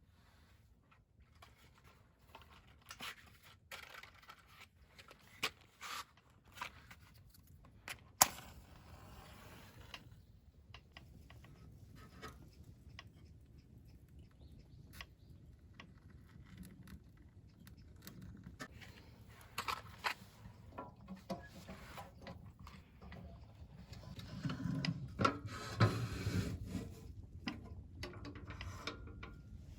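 Objects being handled at close range: scattered light clicks, knocks and scraping, with one sharp click about eight seconds in and busier handling noise near the end.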